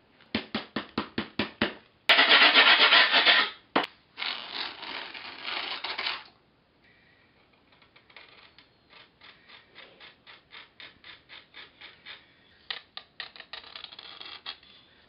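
Grip tape being scraped and cut along a skateboard deck's edge: quick rasping strokes, then a longer, louder rasp about two seconds in and a quieter one after it. For the second half, faint, quick scratching of a marker pen writing on the grip tape.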